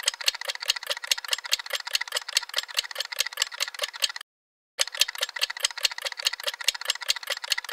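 Rapid, even ticking sound effect, about seven ticks a second, that stops dead for half a second just past the middle and then carries on.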